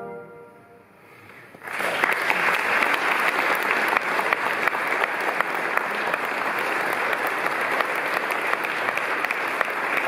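A brass band's last chord fades into a brief hush, then an audience breaks into steady applause about two seconds in.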